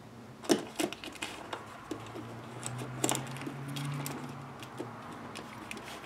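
A few light clicks and taps of small metal tools being pressed into a metal Altoids tin, with a low steady hum for a couple of seconds in the middle.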